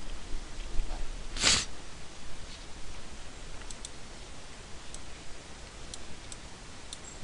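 A short, sharp breath near the microphone about a second and a half in, then several faint computer mouse clicks over a low background hum.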